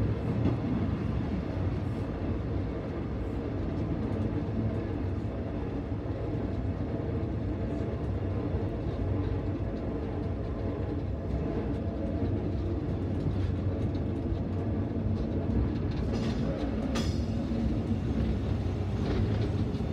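Krefelder Schluff museum train running along the track, a steady low rumble of wheels and running gear heard from on board, with a few sharper clacks near the end.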